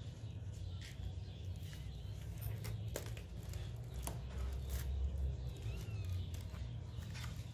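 Young kittens scrabbling on crinkly foil insulation lining a plastic crate: scattered clicks and crackles from their claws over a low rumble, with a few faint high mews about two thirds of the way in.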